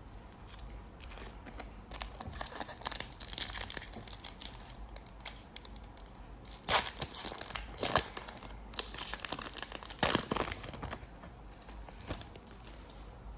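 A trading-card pack wrapper being torn open and crinkled in the hands, in irregular rustling spells with sharp crackles about seven, eight and ten seconds in.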